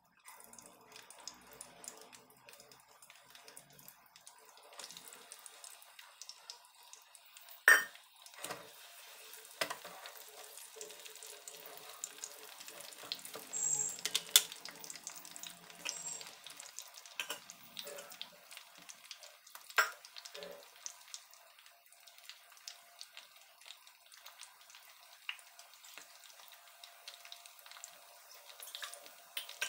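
Oil sizzling and crackling in a frying pan as whole slit brinjals fry, with a few sharp clicks, the loudest about eight seconds in, and a louder spell of sizzling around fourteen seconds.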